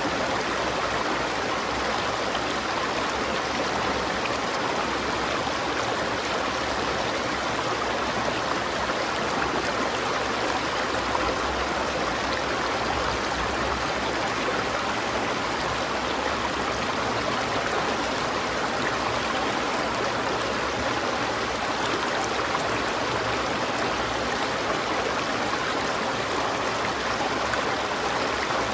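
A river's water flowing over rocks in a steady, unbroken rush.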